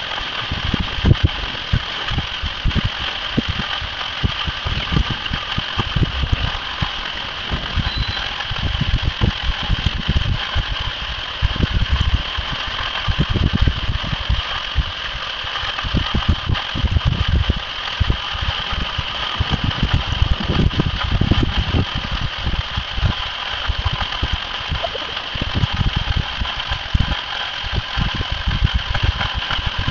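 Continuous rushing noise of a burst water main jetting water high into the air, with irregular low rumbling.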